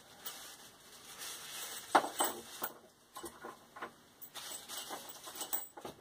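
Small metal ferrocerium rods clicking and rattling as they are handled and set down, in irregular sharp clicks with a louder clack about two seconds in.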